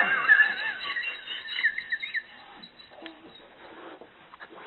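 High-pitched, wavering chirping calls from a small animal, bending up and down in pitch for about two seconds and then stopping, followed by a few faint knocks.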